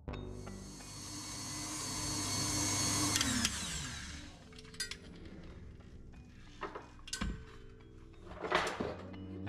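KitchenAid Artisan stand mixer motor running, its wire whisk beating chocolate batter in the steel bowl, then winding down with a falling whine a little over three seconds in. Afterwards come a few sharp clicks and a short clatter near the end as the mixer is stopped and handled.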